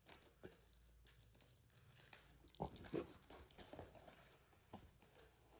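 Faint handling noise as a battery charger's packaging is opened: scattered soft clicks and scrapes, with two slightly louder knocks about two and a half and three seconds in.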